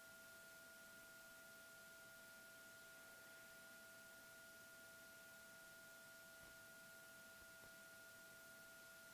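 Near silence: faint hiss with a steady high-pitched electronic tone and a second tone an octave above it, picked up on the camera's cabled audio feed.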